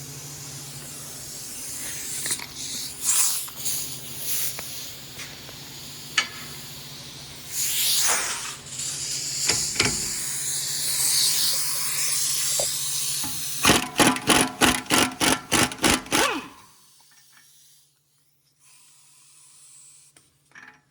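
Impact wrench hammering in several bursts to break loose the front axle bolt of an Audi Q5. It ends in a quick string of blows, about four a second, that stops abruptly about three-quarters of the way in.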